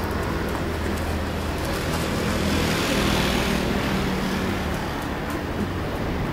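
Road traffic noise, with one vehicle passing that swells and fades about three seconds in, over a steady low hum.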